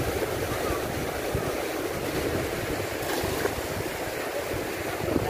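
Steady rush of water pouring through a lake sluice gate, mixed with wind buffeting the microphone.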